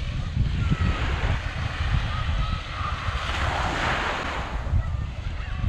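Small sea waves breaking and washing up the beach, one wash swelling and fading about three seconds in, under steady wind buffeting the microphone.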